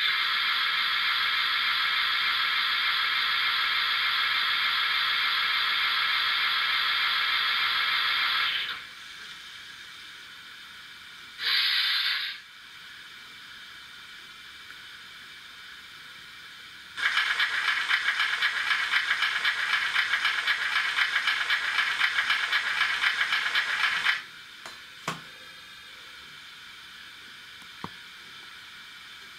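Steam sound effects from the on-board sound speaker of a Trix BR 96 Mallet model steam locomotive. A long steady hiss runs for about nine seconds. A short hiss comes a few seconds later, then a rapidly pulsing hiss lasts about seven seconds and cuts off, with a couple of faint clicks after it. The sound has the thin, narrow tone of a small model speaker.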